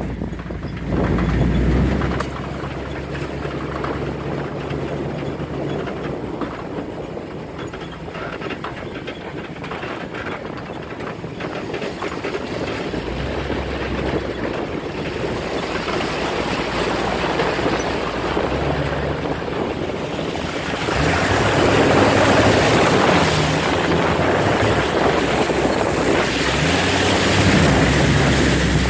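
Off-road vehicle engine running as it drives a rough dirt trail, the engine pitch rising and falling, with tyre and wind noise. It grows louder about two-thirds of the way through.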